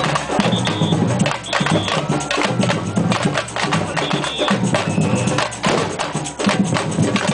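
Street rhythm band playing dense percussion: drums and sharp wooden and metallic strokes in a fast, even beat, with a few short, steady high tones over it.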